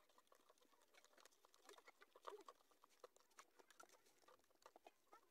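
Faint, irregular clicking and scraping of a metal spoon stirring lemon juice in a plastic cup to dissolve the sugar.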